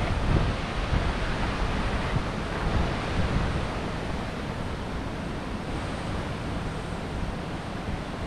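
Wind buffeting the action camera's microphone in uneven low gusts for the first few seconds, then settling into a steady rushing hiss.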